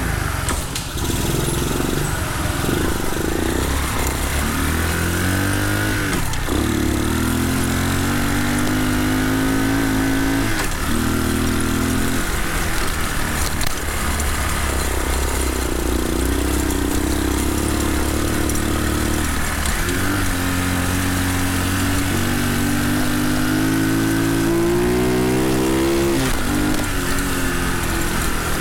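Small horizontal single-cylinder engine of a Redcat CT70-clone mini bike being ridden, its revs climbing and dropping back several times.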